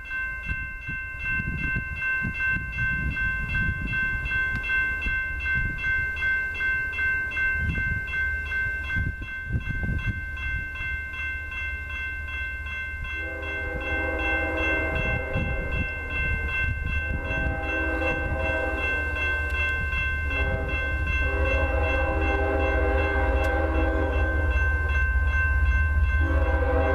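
GE GEVO diesel locomotives approaching with a low, pulsing engine rumble. From about halfway, the lead locomotive's multi-chime air horn sounds a series of blasts: a long one, several shorter ones, another long one, and a new blast starting near the end. A steady high-pitched tone runs underneath.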